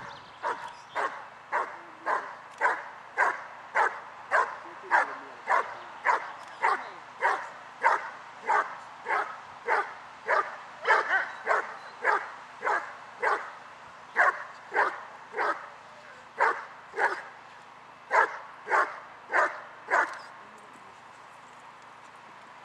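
A German Shepherd-type dog barking steadily at a protection-training helper, about two barks a second, the bark-and-hold before the bite. The barking stops near the end as the dog takes the padded sleeve.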